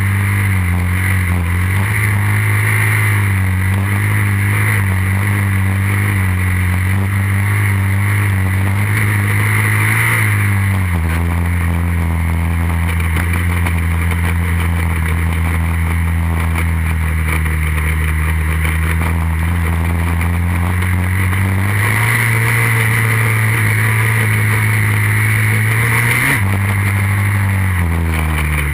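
2008 Kawasaki 450's single-cylinder four-stroke engine running steadily while riding across sand. Its revs drop about ten seconds in, climb again around twenty-two seconds, and rise then fall sharply near the end.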